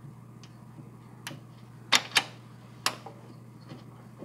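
A few sharp metallic clicks and clinks, about four spread over two seconds, from hand tools and fittings against the underside of a Cub Cadet XT1 lawn tractor while the pulley's flange nut is started. A faint steady hum runs underneath.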